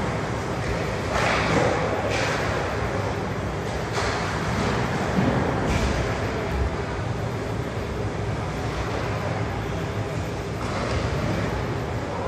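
Ice hockey game sound in a rink: a steady rumble with a few sharp clacks of sticks and puck.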